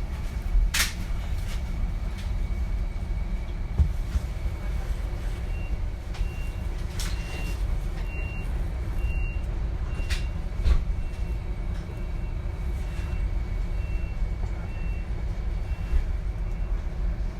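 Interior running noise of a DB Class 425 electric multiple unit under way: a steady low rumble with a thin high whine. From about five seconds in, a short high-pitched note repeats roughly every 0.7 s, and a few sharp clicks come through.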